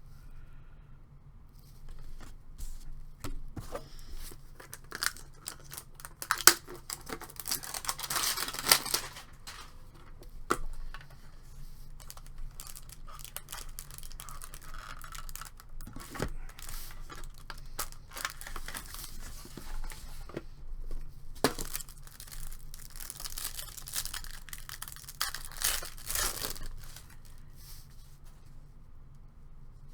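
Trading card pack wrappers being torn open and crinkled, in two longer bursts of tearing and rustling, with scattered sharp clicks and taps of handling the cards and tins in between.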